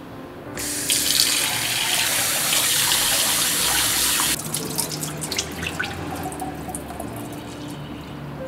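Kitchen tap running into a steel bowl of raw rice, then cut off sharply a few seconds in. Wet clicks and rustles follow as hands swish and rub the grains in the water to rinse the rice.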